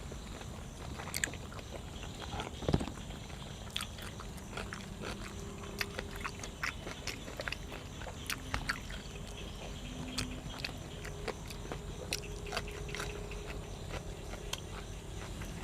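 Close-up chewing and biting while eating cuttlefish and raw vegetables, with many small sharp mouth clicks and crunches scattered irregularly throughout.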